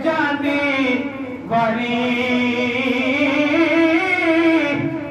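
A man's solo voice singing an unaccompanied Islamic devotional song (naat) into a hand-held microphone, in long drawn-out notes that bend in pitch, with a short breath about a second and a half in.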